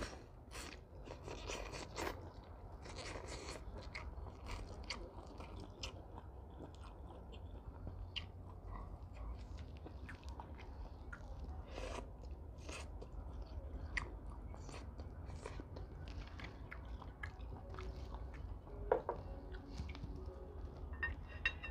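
A person eating vermicelli noodles close to a clip-on microphone: chewing with frequent small wet clicks and smacks of the mouth at an uneven pace.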